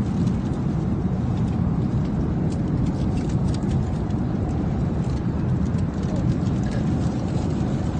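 Steady low rumble of an airliner cabin in flight: engine and airflow noise at an even level, with faint light clicks over it.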